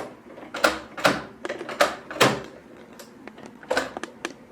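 Sewing machine's stitch selector knob being turned, clicking from one stitch pattern setting to the next: several sharp clicks at irregular spacing.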